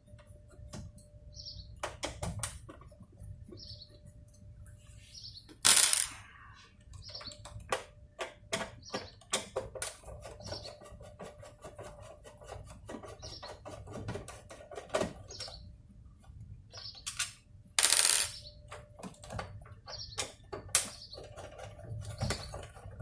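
Small clicks and taps of screwdriver, screws and plastic casing as a PLC is being unscrewed and taken apart, with a bird chirping about once a second in the background. Twice a louder rasping noise lasts about half a second.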